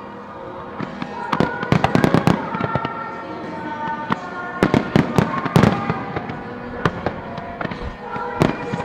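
Fireworks display: shells bursting in clusters of sharp bangs and crackles, heaviest about two seconds in, again around five to six seconds, and near the end. Music plays underneath.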